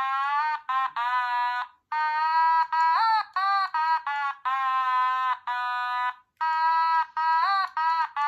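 Otamatone played by ear: a run of separate high-pitched electronic notes with short breaks between them, some of them sliding up into pitch.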